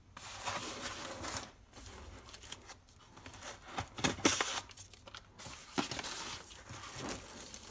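Packaging being handled: a foam sheet lifted away and the laptop's thin plastic sleeve rustling and crinkling, with a few sharp crackles.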